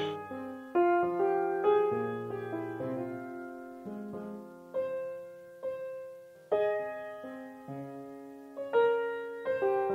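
Background music: a slow solo piano piece, single notes and chords struck roughly once a second and left to ring and fade. No firework bangs are heard.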